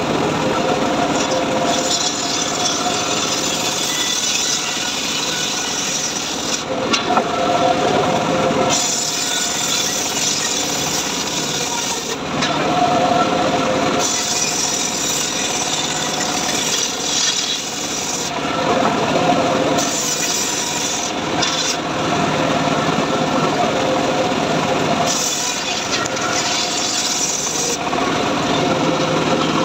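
Homemade bench circular saw ripping trembesi (rain tree) timber into boards: the blade runs with a steady hum, and a loud hissing cutting noise swells and fades as the wood is fed through in passes of a few seconds each.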